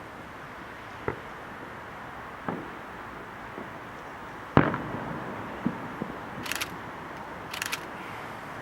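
Aerial fireworks shells bursting: a series of separate booms spaced a second or more apart, the loudest about four and a half seconds in, each trailing off briefly, over a steady background hiss.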